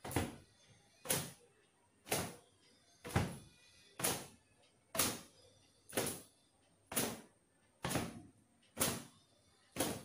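Towel slapping against long wet hair, one sharp whack about every second in a steady, even beat.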